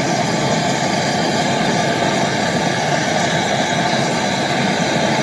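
Handheld gas-canister brazing torch burning with a steady hiss of flame, heating a copper filter drier joint during brazing of a deep freezer's refrigerant line.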